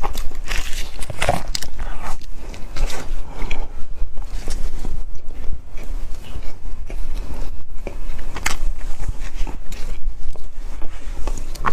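Close-miked biting and chewing of a crunchy snack: irregular crackling crunches, with a sharper crunch about eight seconds in.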